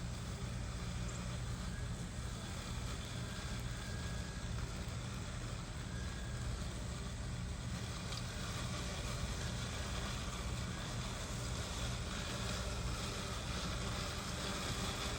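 Mammotion Luba 2 robot lawnmower running as it cuts grass: a steady low hum from its electric drive and blade motors.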